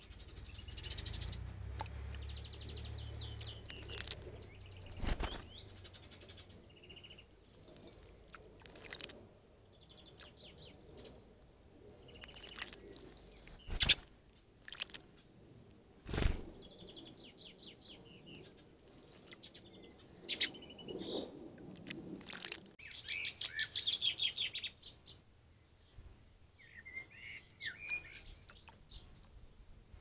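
Small songbirds chirping and calling in short bursts around a garden bird bath, with several sharp knocks, the loudest about 14 and 16 seconds in, and a dense rapid rattle about 23 seconds in.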